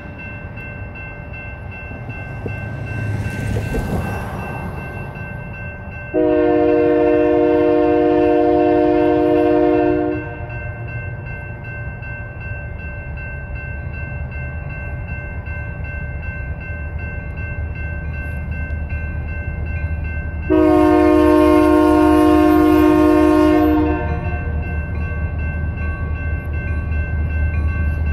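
Union Pacific diesel locomotive's air horn sounding two long chords for the grade crossing, the first about six seconds in and the second about twenty seconds in, each lasting three to four seconds. Under them a crossing bell rings steadily, and the locomotive's engine rumble grows louder near the end as the train reaches the crossing.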